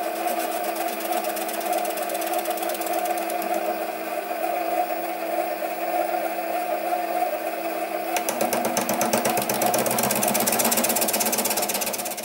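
Sieg SC3 mini lathe running with its four-jaw chuck spinning while a lathe tool takes a facing cut on a small workpiece: a steady motor and gear whine. About eight seconds in it turns louder and rougher, with fast, fine ticking.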